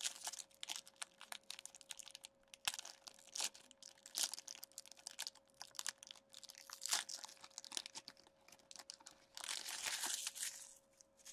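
Hands crinkling and tearing open the wrapper of an Upper Deck SP Game Used hockey card pack. Short crackles run throughout, with a denser burst of crinkling about nine and a half seconds in, over a faint steady hum.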